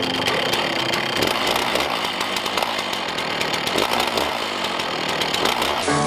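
Two-stroke chainsaw in a chainsaw mill running steadily under load as its chain rips lengthwise through a large cedar log. Near the end it gives way to music.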